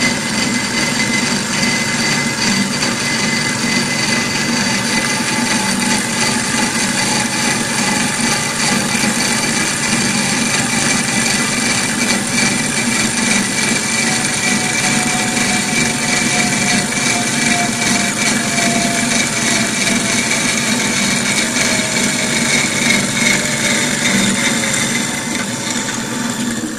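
GS260 metal-cutting band saw running its blade through a rectangular metal tube: a steady machine noise with a high, continuous whine from the blade in the cut.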